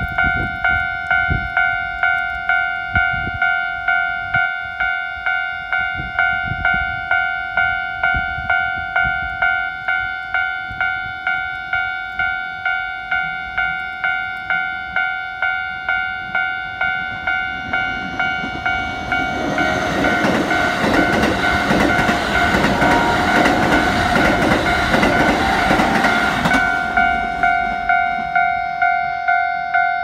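A Japanese level-crossing alarm rings throughout with a steady, evenly repeating electronic ding. From about 19 s a Keikyu 2100 series eight-car train runs over the crossing, its wheels clacking over the rail joints. The train noise stops abruptly about 27 s in, and only the alarm is left.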